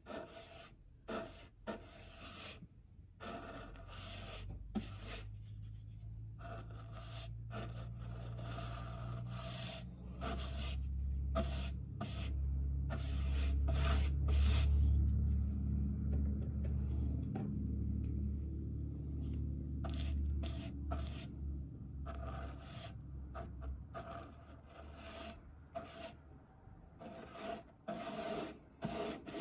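A paintbrush rubbing and scraping over the kick panels of a staircase in short, repeated strokes. A low rumble swells up through the middle and fades out again.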